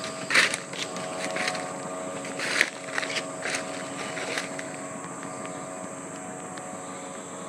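Footsteps crunching on dry leaf litter and twigs, irregular and about one every half second to second; they stop about two-thirds of the way through. A steady hum of several held tones runs underneath.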